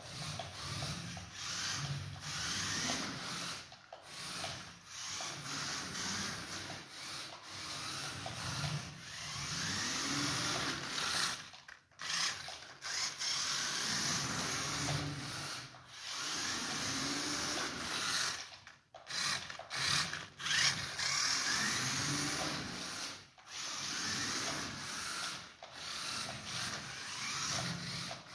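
Toy RC rock crawler's small electric motor and plastic gearbox whirring and grinding as it drives. The pitch rises and falls as it speeds up and slows, with brief stops every few seconds.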